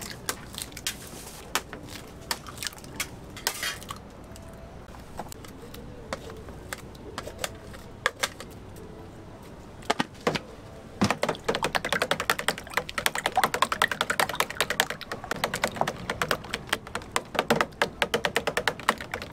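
Eggs cracked one after another on the rim of a plastic tub, a scatter of sharp clicks, then about halfway through a slotted spatula beating a large tub of raw eggs fast: a dense, rapid clatter of the spatula against the tub and the liquid egg.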